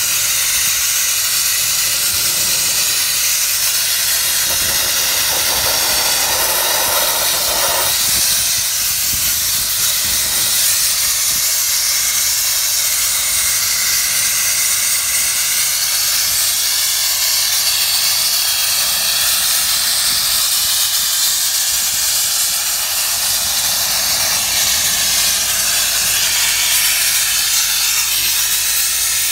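Sandblasting: compressed air and abrasive grit jetting from a blast nozzle onto the steel boom of a JCB backhoe loader, a steady, loud hiss that does not let up.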